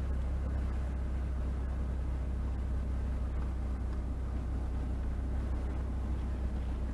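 Steady low rumble of a car's engine and cabin, picked up by a dashcam inside the car.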